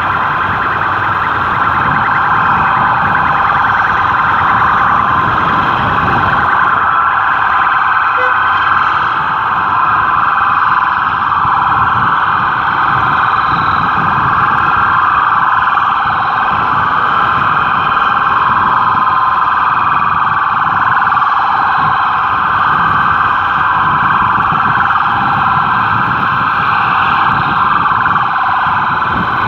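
Police patrol car sirens sounding without a break, with street traffic and engine noise underneath.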